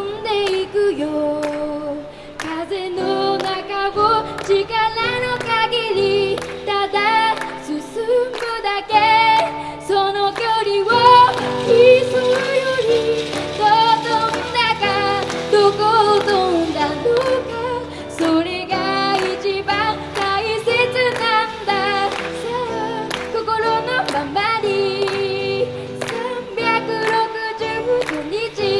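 A girl singing a pop ballad while strumming an acoustic guitar in a steady rhythm.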